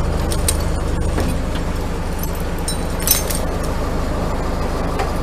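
Wood chipper running at a steady drone. A few light metallic clicks and a brief clatter about three seconds in come from a climbing belt with metal hardware being fed into the infeed.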